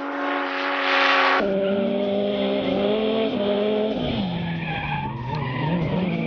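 Drift cars sliding: tyres screeching over an engine held at high revs for about the first second and a half. Then an engine note rises and falls with the throttle through the slide.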